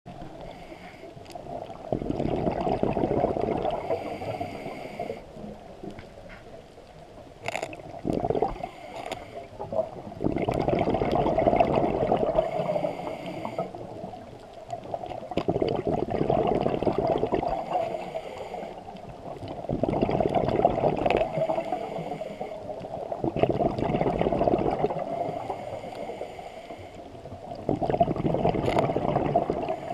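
Scuba diver's regulator breathing heard underwater: exhaled bubbles gurgling in swells of about three seconds, coming back every several seconds, with a hiss of inhalation between them.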